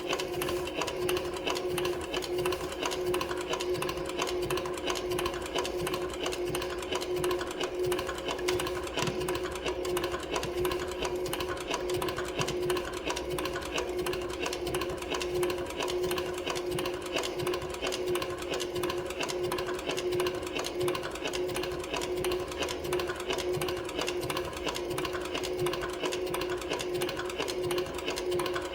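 Cowboy CB4500 extra heavy duty leather sewing machine running steadily at constant speed, a rapid even stitch clatter over a constant motor hum.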